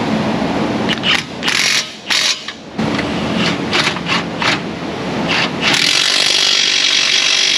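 Hand-held power tool, such as a power ratchet, tightening a suspension fastener. It runs in several short bursts, then runs steadily for about two seconds near the end.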